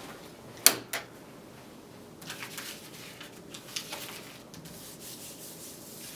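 A sheet of paper rustled and rubbed by hand on a wooden tabletop, close to a microphone: a run of faint, uneven rustles from about two seconds in. Two sharp clicks come shortly before it, about a second in.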